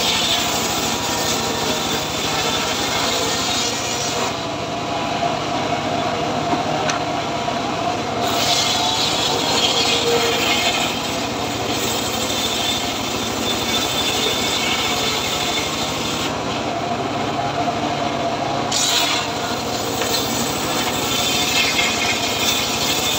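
Homemade table-mounted circular saw ripping hard, dry acacia boards, the blade giving a high, gritty sawing sound over a steady machine drone. The high sawing sound drops away twice, about four and about sixteen seconds in, for a few seconds each, while the drone carries on.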